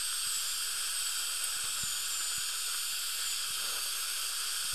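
High-speed dental air-turbine handpiece with a ball diamond bur, cutting old composite filling out of a molar. A thin high whine sags slightly in pitch and stops about three and a half seconds in, over a steady hiss.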